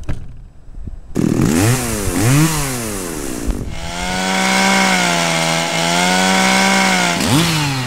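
A small engine starts about a second in, revs up and down twice, then runs steadily at high speed, and revs again near the end.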